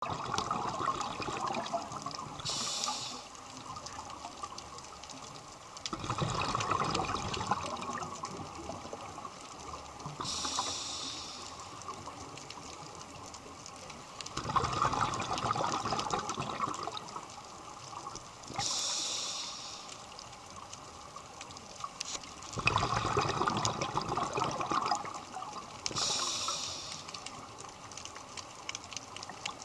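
Scuba diver breathing through a regulator underwater: a short hiss on each inhale, then a longer bubbling rush on each exhale, repeating about every eight seconds.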